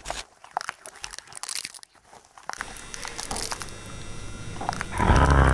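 Crackling and scattered clicks like radio or TV static, which settle into a steady hiss with faint thin tones. About five seconds in, a loud harsh drone with a deep low end comes in.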